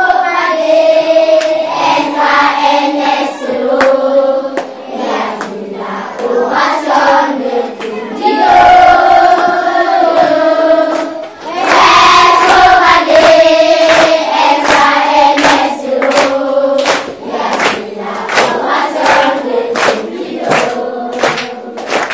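A group of schoolchildren singing together in chorus, with steady hand claps keeping the beat, the claps sharper and louder from about halfway through.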